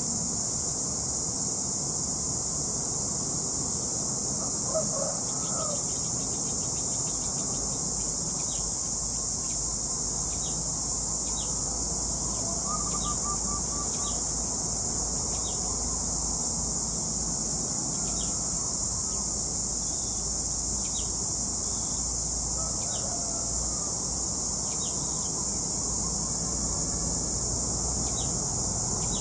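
Steady high-pitched insect chorus, with short high bird chirps repeating about once a second and a few faint brief calls.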